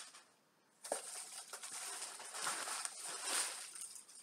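Paper wrapping of a parcel rustling and crinkling as it is unwrapped by hand, after a small click about a second in.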